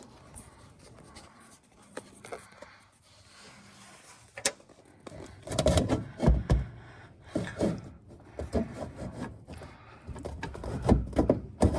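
Steel control panel assembly of a range being worked and pushed into place: quiet handling at first, then from about halfway a series of irregular knocks, bumps and scraping as the panel is seated flush.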